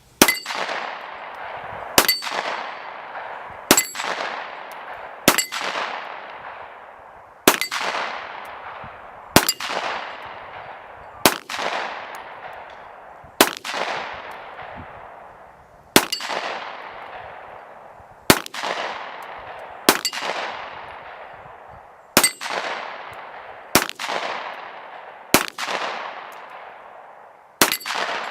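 Smith & Wesson M&P pistol, converted from .40 to 9mm, firing about fifteen single shots at a steady, unhurried pace, roughly one every one and a half to two seconds, each trailing off in a long echo. Steel targets ring with a high clang on the hits.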